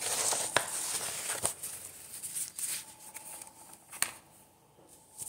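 Sheets of coloured paper rustling and being shuffled close to the microphone, with a few sharp taps. It goes quieter near the end.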